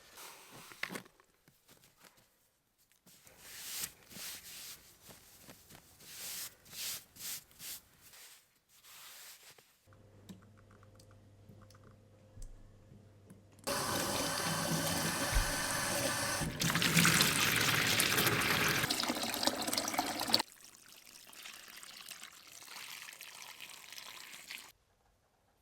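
Water running steadily, as from a tap into a sink, loudest for several seconds midway, with quieter handling noises around it.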